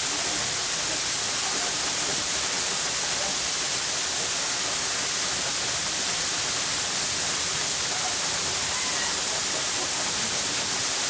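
Waterfall: a steady, unbroken rush of falling water, heard as an even high hiss.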